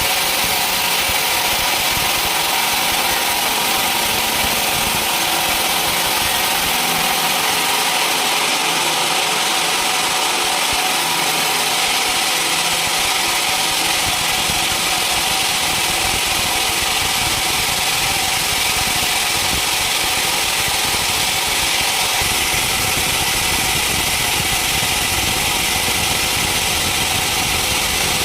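Sawmill machinery running steadily: a constant mechanical hum under a loud, even hiss, with no breaks or changes.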